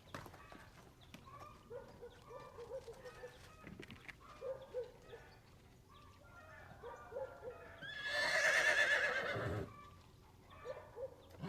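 A foal whinnying once, long and quavering, about eight seconds in, after a run of soft short calls and small noises.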